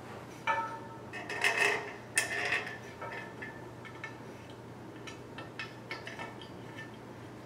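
Bolts and steel bed-frame tubes clinking and rattling as they are handled and fitted, with a burst of louder clinks in the first three seconds, then lighter scattered ticks.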